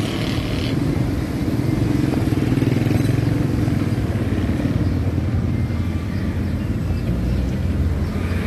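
Onion pakoras sizzling and bubbling in a large karahi of hot oil, under a steady low engine-like rumble.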